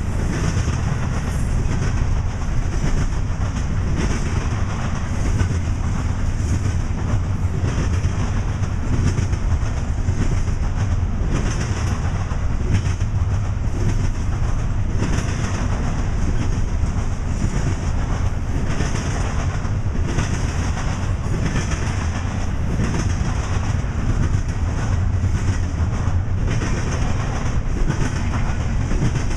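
Double-stack intermodal train's loaded well cars rolling past, a steady rumble with wheels clacking over the rail joints.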